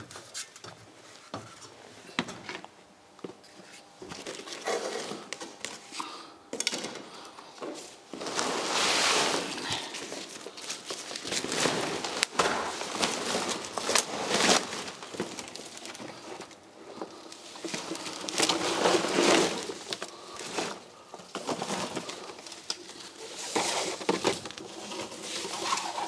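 Woven plastic garbage bags rustling and scraping as they are handled and shifted, in irregular bursts with a few knocks.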